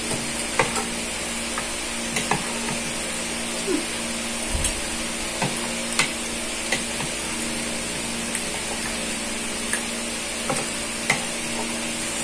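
Spoons and a fork clicking and scraping against a plate and a bowl while eating, as irregular light clinks over a steady background hiss.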